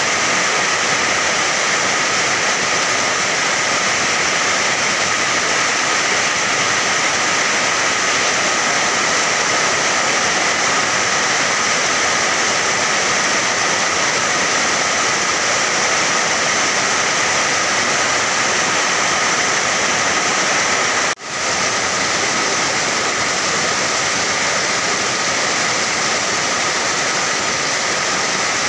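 Steady heavy rain, an even, unbroken hiss. About three-quarters of the way through it cuts out for a split second and fades straight back in, like a loop's splice point.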